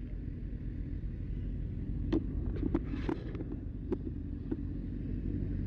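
A vehicle's engine running steadily, a low rumble, with several short sharp knocks about two to four and a half seconds in.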